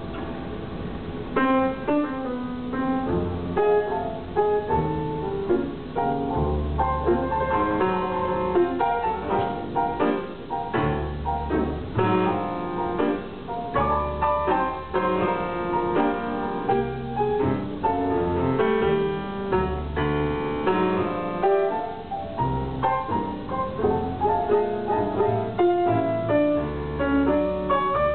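Grand piano played live: a busy run of struck notes and chords, with deep bass notes coming back again and again.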